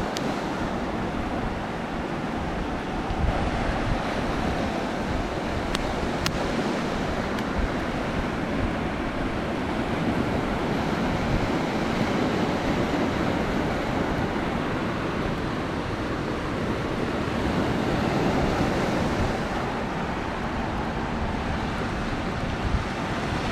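Steady wind rumbling on the microphone over the wash of sea surf, with a couple of faint sharp clicks about six seconds in.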